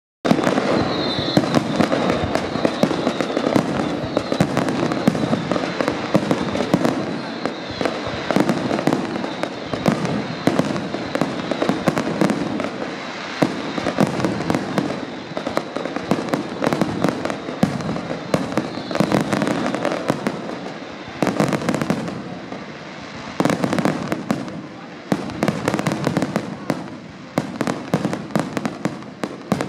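Aerial fireworks display: a dense, continuous barrage of bangs and crackling bursts, coming in louder clusters with brief lulls in the second half.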